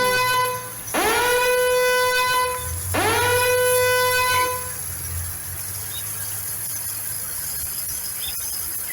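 Two long horn-like blasts about two seconds apart, each swooping up to a steady high note and held for about a second and a half, followed by a steady hiss.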